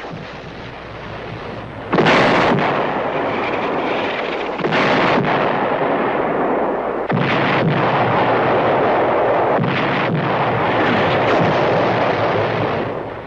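Artillery shells exploding in a barrage: a loud blast about two seconds in, then further blasts every two to three seconds, each trailing into a long rumble.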